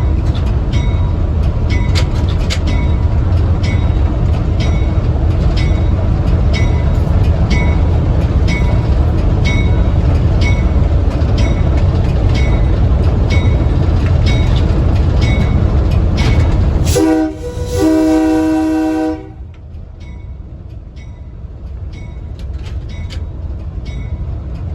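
A train rolling along jointed track: a loud low rumble with wheels clicking over the rail joints at an even pace. About seventeen seconds in, a horn sounds for about two seconds, then the rumble drops to a much quieter level.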